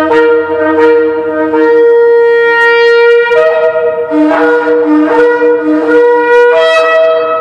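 Two Yemenite shofars blown together, holding long overlapping notes and jumping between lower and higher notes several times, echoing in a concrete parking structure.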